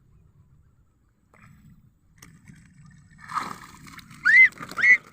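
A bird, goose- or duck-like, giving loud repeated honking calls that rise in pitch, about two a second, starting about four seconds in after a quiet stretch with a faint low rumble.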